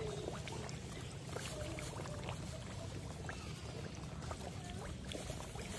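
Koi crowding at the pond surface, making many small splashes and gulping water noises, over a steady low rumble.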